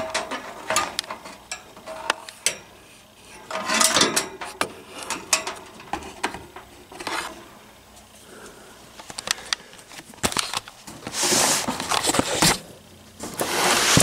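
Handling noise around the metal cabinet of a window air conditioner: scattered clicks, knocks and light rattles, then two longer bursts of rubbing noise near the end. There is no steady running sound.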